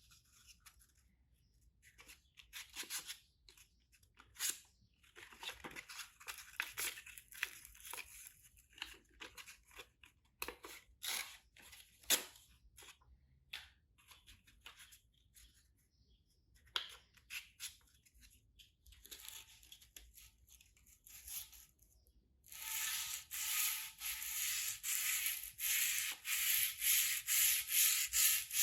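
Hand sanding of an aluminium motorcycle exhaust: scattered, irregular scraping strokes, then from about 22 seconds in a louder, steady back-and-forth of roughly two strokes a second.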